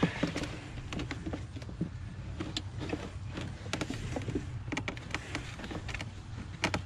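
A hard plastic Hemi V8 engine cover being handled and worked into place over the intake, knocking, scraping and clicking against the engine parts in many small taps, over a steady low hum.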